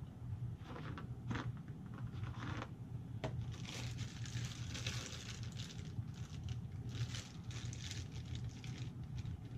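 Plastic packaging rustling and crinkling while miniatures are handled, with scattered light clicks and a low steady hum underneath.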